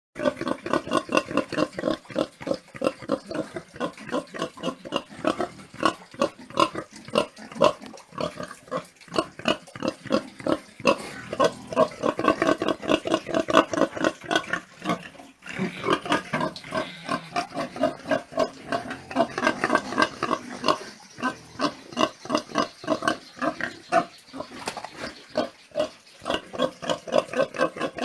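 Pigs grunting and oinking continuously, many short calls in quick succession, with a few longer squealing calls from about 15 to 21 seconds in.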